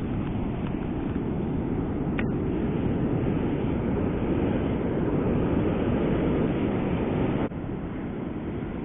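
Steady rushing noise of wind on the microphone mixed with ocean surf, with one short click a little over two seconds in. The noise drops suddenly and gets quieter near the end.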